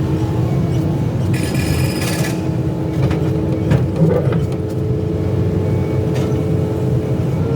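Excavator's diesel engine running steadily with a constant low rumble. A brief high hiss comes about a second and a half in, and a few sharp knocks sound around three to four seconds in.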